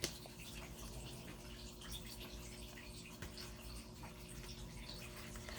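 Faint steady background hum with a light hiss, no distinct events: quiet room tone.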